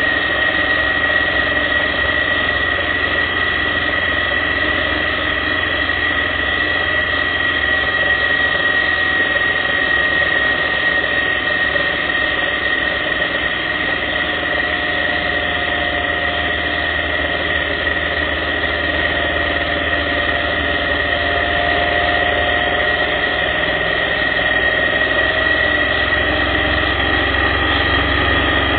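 Motorcycle running steadily at cruising speed, an even engine-and-road drone with a steady high whine above it.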